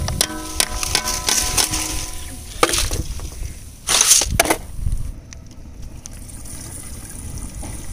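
Metal cooking utensils clanking. A ringing strike at the start dies away over about a second and a half, and sharper clatters follow about two and a half and four seconds in.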